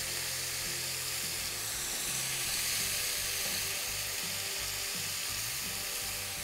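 Cubed raw potatoes sizzling steadily in hot oil and tomato juices in a stainless steel frying pan as they sauté.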